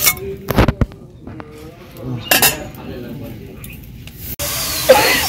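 Metal spatula clinking and scraping against a stainless steel bowl as an omelette is slid into it, with a few sharp knocks in the first second and another about two seconds in. Near the end a steady hiss starts abruptly.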